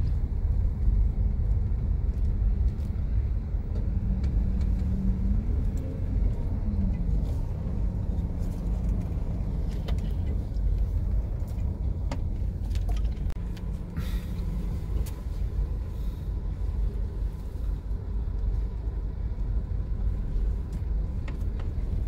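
Steady low rumble of a car's engine and tyres at crawling speed, heard from inside the cabin, with a few faint clicks.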